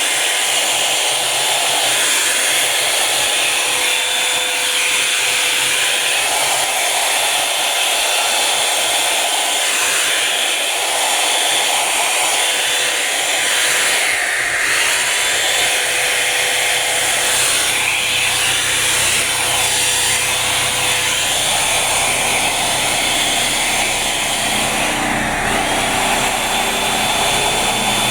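Revlon Volumizer Plus hot-air brush hair dryer running steadily, blowing air with a steady whine. Near the end the whine dips briefly and then comes back.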